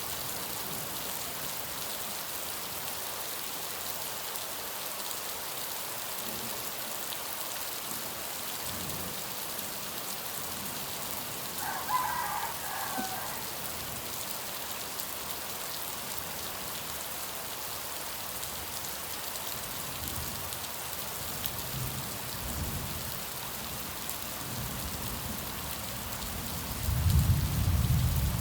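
Steady rain falling, an even hiss. Low rumbles of thunder come in after about twenty seconds, the loudest near the end. A short higher-pitched sound is heard about halfway through.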